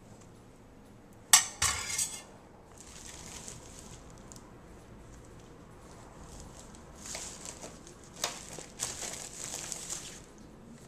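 A metal kitchen utensil clatters sharply against a disposable aluminium foil pan a little over a second in. Later there is softer crinkling of the thin foil pan as it is handled, with a longer stretch of crinkling and light clinks near the end.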